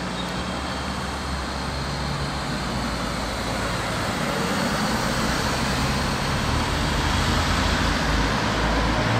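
Steady background rumble and hiss that slowly gets louder toward the end, with no distinct events.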